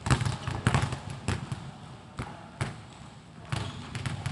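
Two basketballs being dribbled at once on a wooden court floor, each bounce a sharp thud. The bounces come roughly every half second, thin out in the middle, then pick up again near the end.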